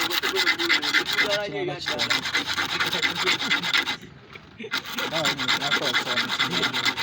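Rapid rasping scrape, like a file or rasp worked fast on a hard surface. It runs as a dense stream of quick strokes, stops for a moment about four seconds in, then starts again.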